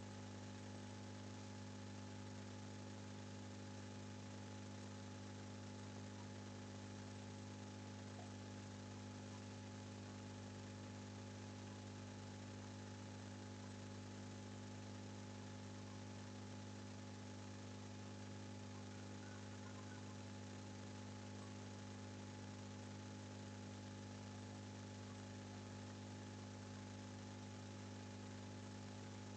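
Faint, steady electrical mains hum with a low hiss, unchanging.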